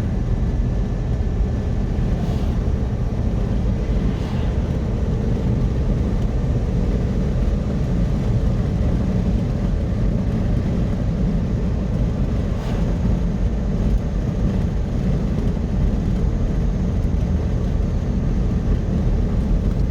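Steady low rumble of road noise from a car being driven, with no breaks or changes.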